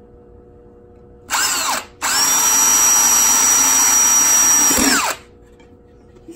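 Cordless drill with a 1/8-inch bit drilling through the thin tin of an empty sardine can. A short burst comes about a second in, then a steady run of about three seconds with a high whine, winding down at the end.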